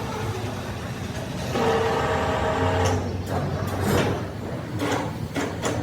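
Heavy machinery running with a steady low rumble and a humming tone for a second or so, then several sharp metallic knocks in the last two seconds.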